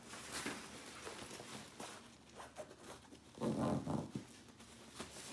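Fabric and straps of a loaded ULA Catalyst backpack rustling and scraping as they are handled, with a louder rub about three and a half seconds in.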